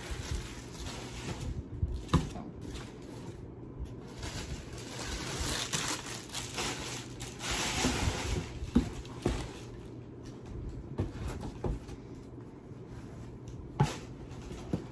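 Packaging being handled: rustling and crinkling, loudest about halfway through, with a few sharp knocks scattered through.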